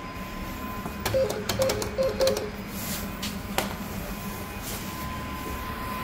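Lift's signal chime: a high-low pair of notes repeated about four times in quick succession about a second in, with clicks around it and another click later. A steady hum and a thin steady tone run underneath.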